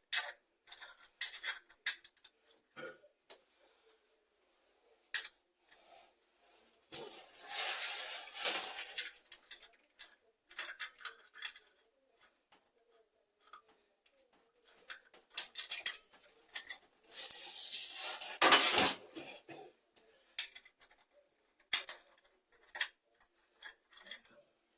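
Metal tap parts and tools being handled: repeated clinks and knocks, with two short stretches of hissing noise about a third of the way in and again past the middle.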